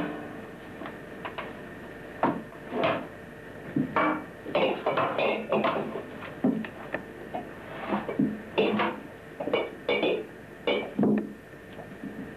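Empty glass jars clinking and knocking against one another as they are pushed about, in irregular single knocks and short clusters.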